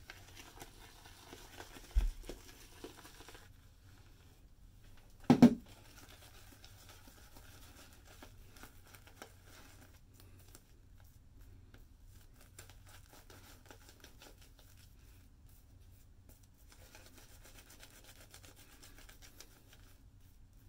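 Synthetic shaving brush swirling shaving-soap lather over a bearded face, a faint scratchy swishing that goes on and off. There is a low thump about two seconds in and a louder knock about five seconds in.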